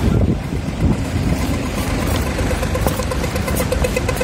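Street traffic rumbling. From about two and a half seconds in, a rapid pitched electronic ticking from a pedestrian crossing signal, the fast tick that signals walk.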